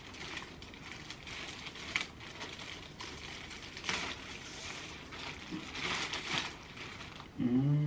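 Packaging crinkling and rustling in uneven bursts as the award plaque is handled and unwrapped, with a short voice sound near the end.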